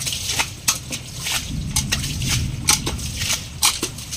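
Clear plastic container scooping muddy floodwater off a floor, with water sloshing and a string of sharp splashes at irregular intervals.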